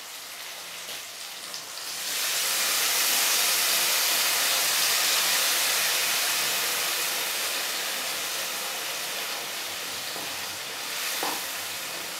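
Hot oil in a kadhai of frying chicken sizzling loudly as wet onion-garlic-ginger masala paste goes in: the hiss jumps up about two seconds in and slowly dies down.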